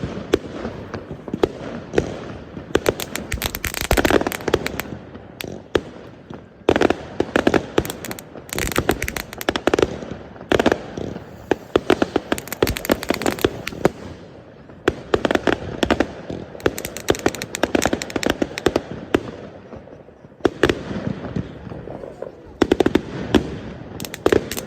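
New Year fireworks going off continuously: rapid runs of crackling pops and bangs with short lulls between them, echoing.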